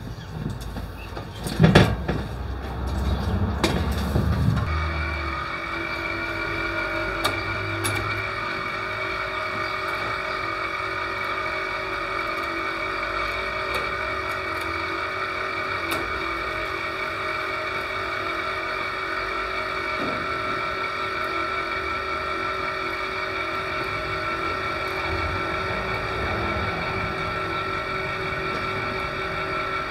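A sharp clunk and some handling knocks, then from about five seconds in a ladder hoist's motor runs with a steady whine that does not change, carrying a solar panel up the rail beside the ladder.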